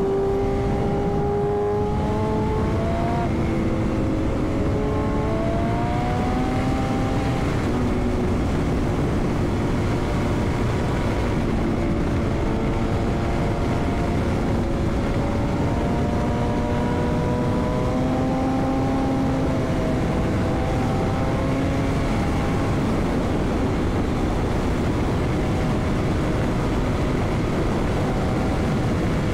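Superbike engine running at highway speed under a steady rush of wind, its note drifting slowly up and down with the throttle.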